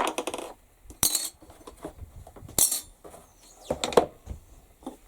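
Small metal tools and parts clinking and knocking on a workbench as they are handled: several separate sharp clinks about a second apart.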